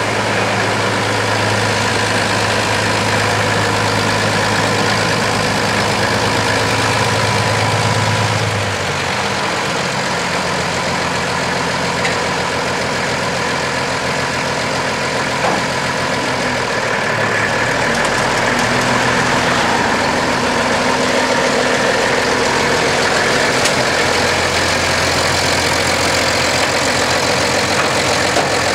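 Minneapolis-Moline GB tractor's six-cylinder engine running slowly, with other vintage tractor engines running around it. A deep steady hum fades about eight seconds in and comes back near the end.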